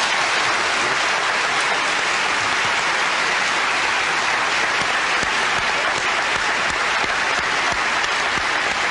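Studio audience applauding, a steady wash of many hands clapping that holds at full strength throughout.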